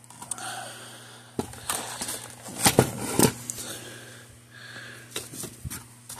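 Scattered clicks and knocks of hands handling a plastic fence-energizer case and prying at its terminal block, over a steady low hum.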